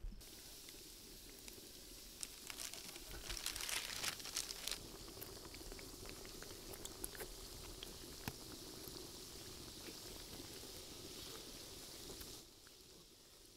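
Donuts deep-frying in hot oil in a large aluminium pot: a steady sizzle with crackling pops. It gets louder for about two seconds a few seconds in and drops away near the end.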